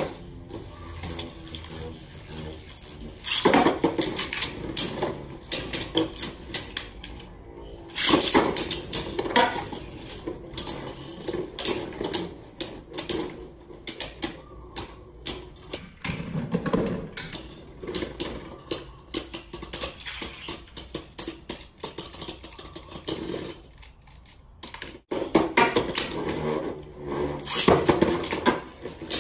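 Three Beyblade Burst spinning tops launched into a clear plastic stadium, clashing and clattering against each other and the stadium walls. The sound is a run of sharp clacks and rapid rattling that comes in several louder spells, with quieter rattling between.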